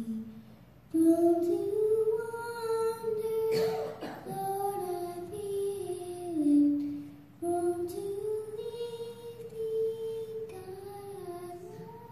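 A young girl's voice singing a song into a microphone, in long held notes over three phrases, with a short noise just before four seconds in.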